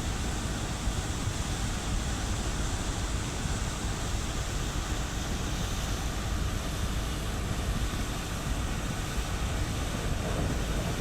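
Steady low rumble with wind buffeting the microphone: a ship's engine and the sea breeze while the ship comes alongside a pier.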